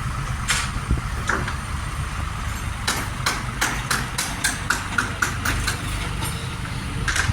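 Tractor engine idling steadily, with a quick run of about ten sharp clicks or knocks in the middle.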